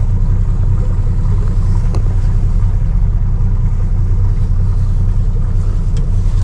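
Motorboat engine running steadily, a low rumble with no change in pitch.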